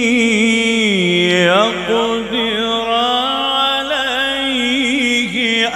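A man reciting the Quran in the melodic mujawwad style into a microphone, drawing out long held notes with wavering ornaments. The pitch falls about a second in, then climbs and turns again.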